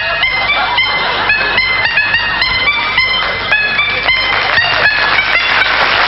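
A melody played on tuned horns: a quick run of short, honking notes, several a second, jumping up and down in pitch.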